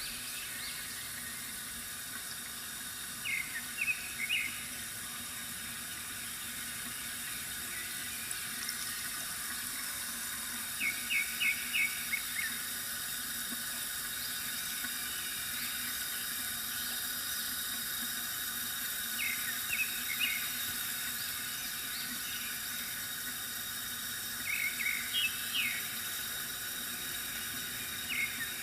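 Steady trickling of water from a bamboo fountain, with a small bird chirping in quick runs of three to five notes every several seconds.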